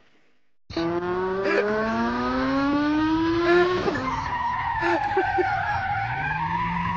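Small motor vehicle engine, likely a scooter's, accelerating: it starts abruptly less than a second in and rises in pitch for about three seconds, then settles into a high wavering whine over a low steady hum.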